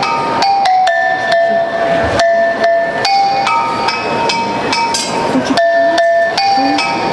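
Music of struck, bell-like metallic notes played in a quick melody, each note starting sharply and ringing until the next.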